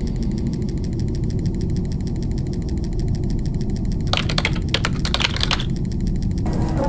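A machine running with a steady low rumble and a fast, even clicking rattle, with a louder burst of clattering about four seconds in that lasts about a second and a half.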